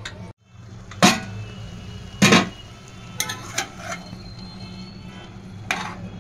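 Steel ladle knocking and scraping against an aluminium pressure cooker while stirring diced potatoes and chickpeas, with two loud clanks about one and two seconds in and lighter clicks after, over a steady low hum.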